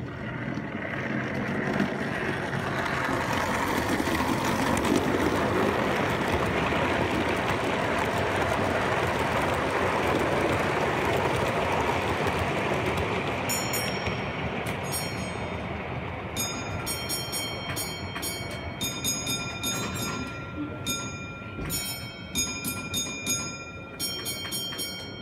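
Model train of maroon coaches running past close by on a curved track: a continuous rattling rumble of wheels on rail that builds, holds and fades as the train goes by. In the second half comes a run of short, high-pitched ringing clicks.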